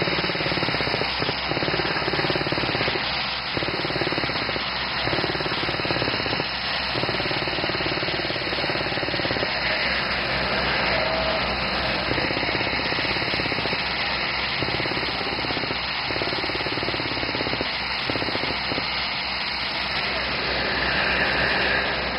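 Beretta T46 crawler drill rig drilling into a soil slope, its engine and drill head running with a steady, even mechanical noise that never lets up.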